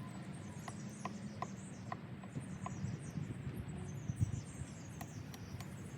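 Faint, high small-bird chirping with a row of light ticks, over a low hum.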